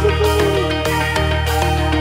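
Background music with a steady beat, about two beats a second, over sustained notes and a bass line.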